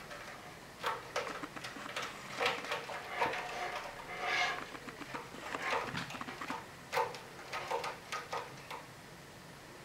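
A cat's claws scratching and scrabbling on the sisal rope of a cat-tree post as it climbs and grips, in irregular bursts of rasping scratches and clicks that die away near the end.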